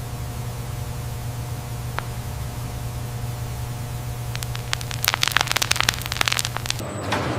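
Sawmill machinery running with a steady low hum, broken by a burst of rapid clattering about four and a half seconds in that lasts about a second and a half.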